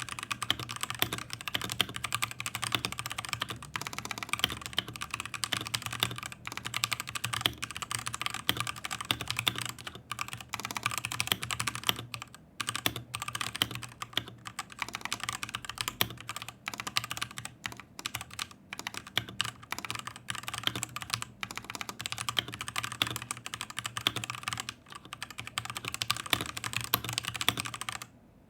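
Typing on a stock Husky Hailstorm mechanical keyboard with Gateron Red linear switches: a fast, continuous run of key clacks with a few short pauses, stopping just before the end.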